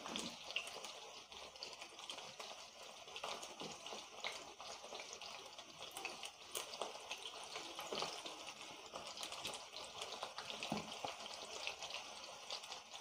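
Chicken pieces deep-frying in hot oil in a kadhai on a low flame: a steady sizzle dotted with fine crackles, as the pieces turn golden brown.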